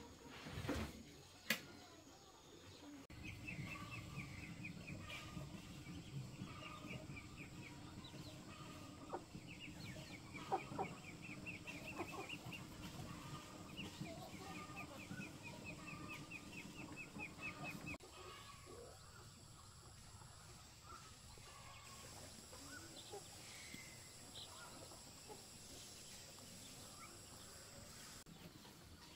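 Chickens clucking quietly over a steady low background, with two sharp knocks near the start.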